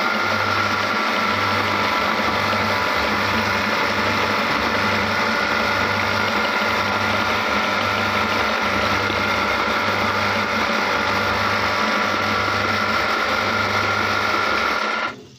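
Meat grinder running steadily as it grinds green chilies: a constant mechanical whir with a strong high tone over a low pulsing hum. It cuts off abruptly near the end.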